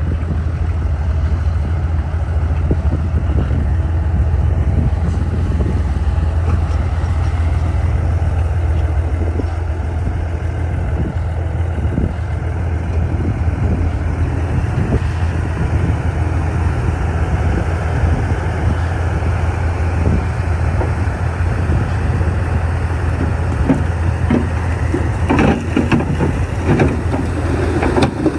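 Bulldozer's diesel engine running steadily with a deep drone, with a cluster of metallic knocks and clatter near the end.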